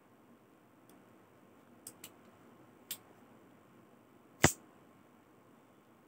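Short metallic clicks from a liner-lock folding pocket knife being handled. There are a few light clicks, then one loud, sharp snap about four and a half seconds in.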